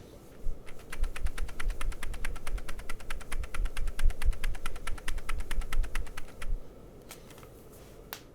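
Fast typing on a Womier SK75 TMR keyboard with Outemu TMR magnetic switches, PBT double-shot Cherry-profile keycaps, an FR4 plate and an aluminium case. A quick, steady run of key clacks lasts about six seconds, then trails off into a few stray keystrokes near the end.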